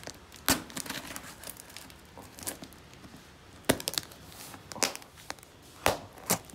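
Plastic mailer wrapping and packing tape on a cardboard parcel being pierced and torn open with a small knife, crinkling and crackling with about five sharp cracks.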